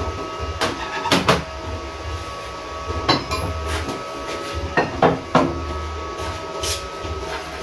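Metal hand tools clinking and knocking as they are hung on a pegboard and handled on a wooden workbench: about eight sharp knocks at irregular intervals, over a steady low hum.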